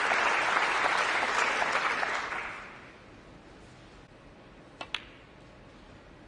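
Audience applause that dies away over the first three seconds, leaving a quiet hall. About five seconds in come two sharp clicks close together: a snooker cue tip striking the cue ball, then the cue ball hitting an object ball.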